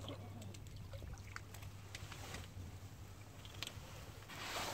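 Quiet handling of rod, line and a small landed pejerrey: a few faint scattered clicks and rustles over a steady low hum.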